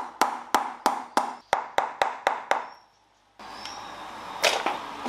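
Rapid, even knocks on an engine's valve cover, about four a second, tapping it loose where it is stuck to its cork gasket. The run stops a little before halfway, and after a short pause a couple of single clunks follow near the end.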